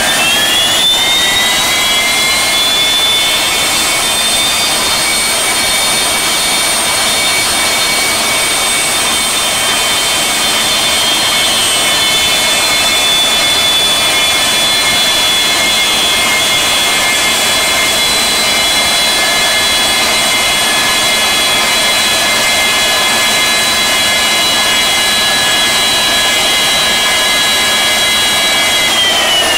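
Saab 340's General Electric CT7 turboprop engine being spun over for an engine wash. Its turbine whine rises over the first few seconds, holds steady, then begins to wind down near the end.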